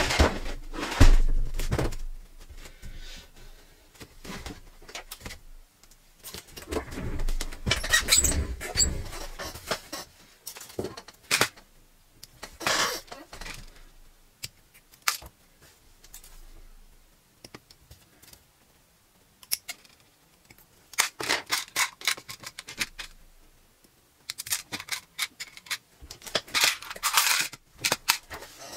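Hobby side cutters snipping gold plastic model-kit parts off their runners, in sharp clicks, with the plastic runner frame rattling and small parts clattering into plastic tubs in short bursts between quieter gaps.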